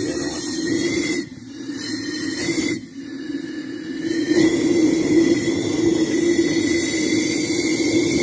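Oxy-fuel cutting torch hissing steadily as it burns a slot through the steel housing of a truck spring brake chamber, to disarm its loaded spring. The hiss drops off briefly twice in the first three seconds.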